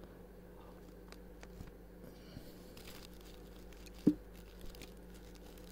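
Steady low electrical hum with faint scattered clicks of handling, and one sharper knock about four seconds in.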